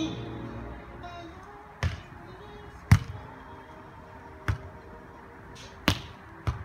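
A beach volleyball being struck by players' hands and forearms during a rally: five sharp slaps, about one to one and a half seconds apart, with the last two close together.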